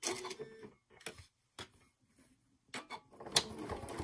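A few scattered clicks and knocks from a Janome sewing machine being handled, then a sharp click near the end as the machine starts up and runs steadily, stitching.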